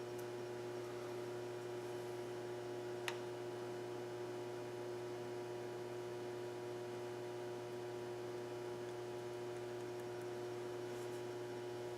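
Steady electrical hum with a constant pitch, and one sharp click about three seconds in.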